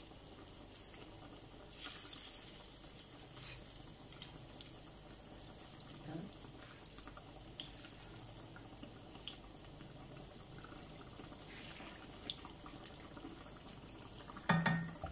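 Besan-battered fish deep-frying in hot oil in a karahi: a steady sizzle with small pops and crackles, louder for a moment about two seconds in.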